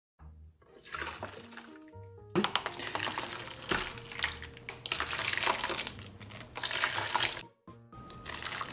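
Reddish sauce being poured from Samyang fire-noodle cups into a huge bowl of cooked noodles, starting about two seconds in, stopping briefly near the end and starting again, over soft background music.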